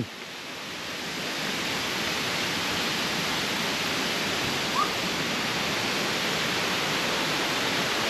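Steady rushing of flowing water from a forest stream, growing gradually louder, with one short chirp about halfway through.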